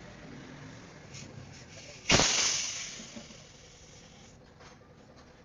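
A sudden loud hiss of pressurised gas about two seconds in, fading away over about a second and a half.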